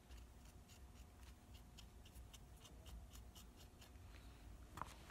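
Faint, quick scratchy strokes of a damp cotton swab scrubbing at a die-cast Harley-Davidson model motorcycle, several strokes a second, with a small click near the end.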